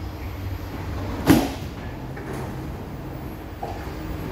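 SMRT C151B train's sliding doors opening at a station stop, with one sharp clunk about a second in as they release, over the steady low hum of the stopped train.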